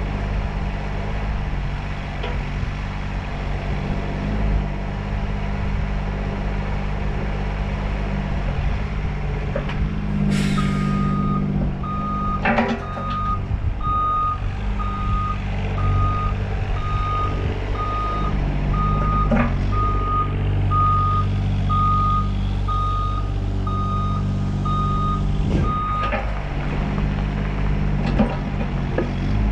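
Yanmar SV15 mini excavator's diesel engine running steadily while the boom and arm swing, with a few clunks. About ten seconds in there is a short hiss of air. Then a reversing alarm beeps a little over once a second for about fifteen seconds.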